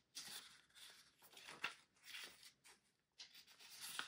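Faint paper rustling as the pages of a CD album booklet are handled and turned, with a few short rustles and one light tick.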